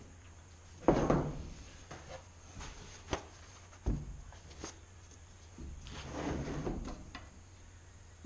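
Knocks and rustling as things are handled on a wooden workbench: a loud clunk about a second in, two sharp knocks a little later, and a stretch of paper-towel rustling and wiping further on.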